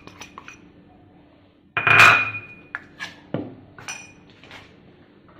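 Kitchen utensils clinking against dishes: a few light clinks, then one loud metallic clank that rings on briefly about two seconds in, followed by several lighter knocks.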